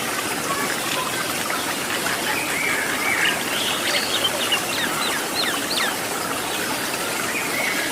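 Steady rush of a waterfall, with a small bird giving a run of short chirps and whistled notes from about two and a half to six seconds in.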